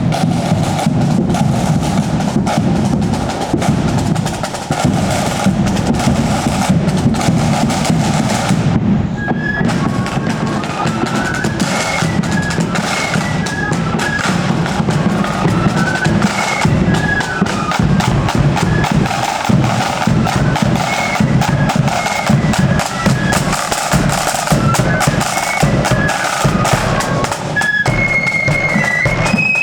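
Marching band on parade. Snare and bass drums play alone for about the first nine seconds, then high wind instruments take up a tune over the drumming.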